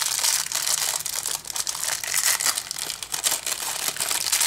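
Thin clear plastic LEGO parts bag crinkling and crackling in the hands as it is pulled open, a steady run of rapid sharp crackles.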